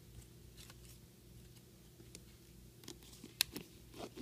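Light clicks and rustling of a wallet being handled and slid into a handbag, with one sharper click a little past the middle. A faint steady hum sits underneath.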